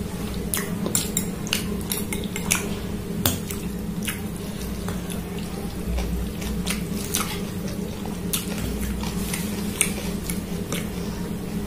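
Metal fork and spoon clinking and scraping against a glass bowl of ramen noodles in scattered short clicks, over a steady low hum.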